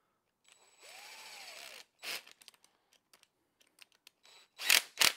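Cordless drill running for about a second to thread a bolt into a well-pump torque arrestor, its motor pitch rising and then falling. Scattered clicks follow, then two loud knocks near the end.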